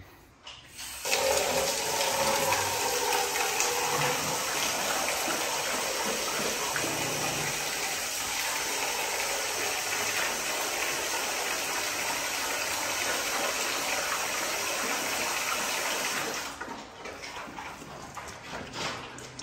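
Water running steadily into a container, filling dogs' water bowls. The flow starts about a second in and stops a few seconds before the end, leaving a few faint knocks.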